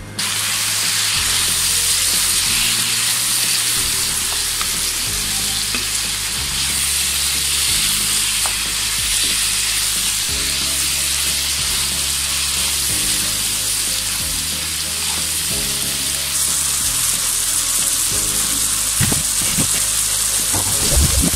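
Beef pieces and halim spice mix sizzling steadily in hot oil while a spatula stirs and scrapes them around the pan as the meat is fried down with the masala. There are a few louder scrapes near the end.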